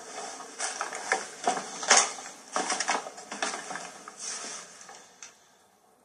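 Irregular crackling and rustling of litter, paper and plastic strewn over the floor, in uneven clusters of sharp clicks that die away just after five seconds in.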